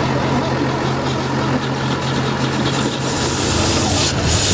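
1961 Chevy Apache's 235 stovebolt inline-six, running on fuel poured into the carburetor, with a steady low note. Near the end a rushing hiss comes in and the engine grows louder as it starts to run away from itself, the accelerator stuck open.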